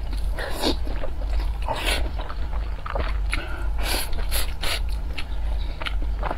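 Close-miked slurping and chewing of noodles: a string of short, wet, noisy mouth sounds at uneven intervals, over a steady low hum.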